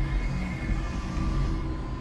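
Electric forklift with a heavy load on its forks, heard from inside the cab: a steady electric motor whine in a few thin tones over a low hum.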